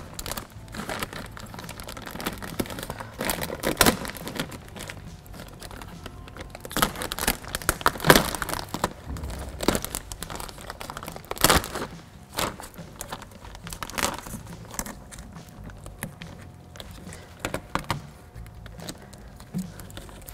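Plastic door vapor barrier sheet crinkling and crackling as it is handled, pulled apart where it has stuck to itself and pressed back onto the door's adhesive, in irregular sharp crackles and rustles.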